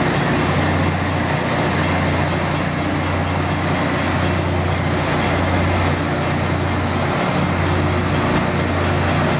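LORAM rail grinder passing at work, its grinding stones running on the rails in a loud, steady grinding rush over a low engine drone. It is grinding worn rails back into shape.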